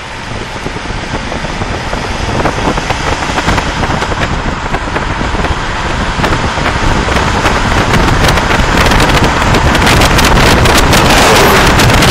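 Wind rushing over the microphone at an open car window while driving, with the car's low road rumble underneath. The noise grows steadily louder, and from about halfway through it crackles and buffets on the microphone.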